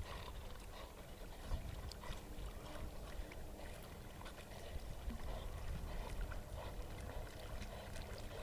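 Faint splashing and sloshing water, with a low rumble of wind on the microphone.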